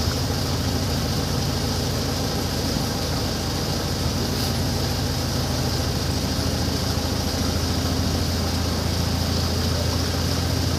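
Boat engine running steadily at an even pitch, with a steady hiss above it.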